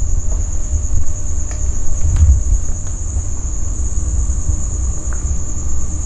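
Crickets chirring in one steady high-pitched drone, over an uneven low rumble on the microphone, with a few faint clicks.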